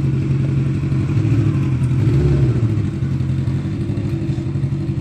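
Kawasaki GT550's air-cooled inline-four engine running steadily, with a brief change in pitch about one to two and a half seconds in as the motorcycle is moved off slowly.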